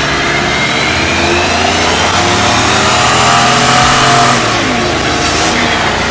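Lincoln Town Car's V8 revving hard during a burnout, rear tyres spinning and screeching on the asphalt as they smoke. The revs climb over the first few seconds, hold, then fall away near the end.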